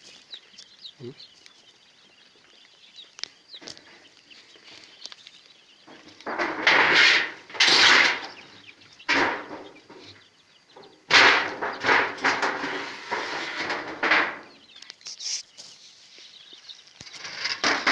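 Broiler chicks peeping softly, with a loud rustling stretch about six seconds in and a longer one about eleven seconds in as a large sheet is handled in the brooder.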